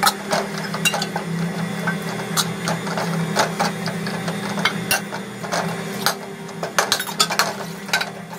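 Steel spatula scraping and clinking against an aluminium kadai as chopped chicken is stirred and tossed, in irregular knocks, over a steady low hum.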